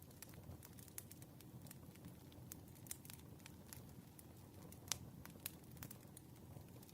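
Wood fire crackling faintly, with irregular sharp pops over a low steady rumble and one louder pop about five seconds in.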